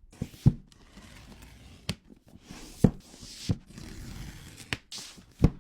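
Packaging being handled by hand during an unboxing: a series of sharp knocks and taps on the box, about seven in all and loudest near the end, with rustling and scraping of the packaging between them.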